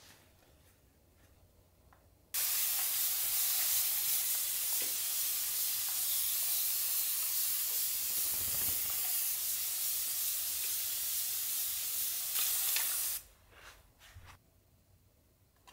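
Spray mister misting houseplant leaves: one continuous hiss of fine spray lasting about ten seconds, starting and stopping abruptly. A few light taps follow near the end.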